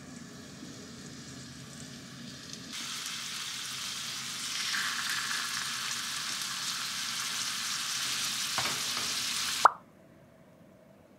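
Flour-dusted pork-wrapped green peppers sizzling as they fry in a frying pan. The sizzle starts about three seconds in and grows louder. Near the end there is a faint knock and then a sharp click, the loudest moment, after which the sizzle cuts off suddenly.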